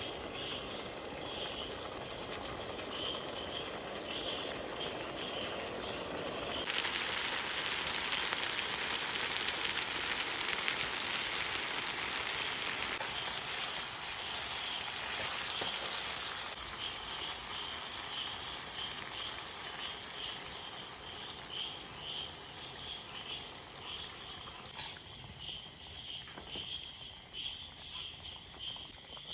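A high, rapid chirping that repeats steadily throughout, insect-like. About seven seconds in, a loud hiss starts suddenly and fades away over the next several seconds.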